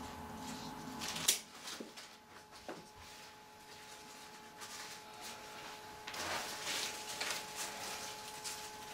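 Flower stems and foliage rustling as they are handled and pushed into an arrangement, with a sharp click about a second in.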